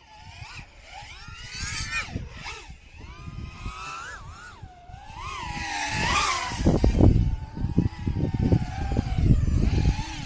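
FPV quadcopter flying, its motors whining in a pitch that swoops up and down with the throttle. About six seconds in the whine grows loudest as it comes close, and heavy low rumbling follows through the second half.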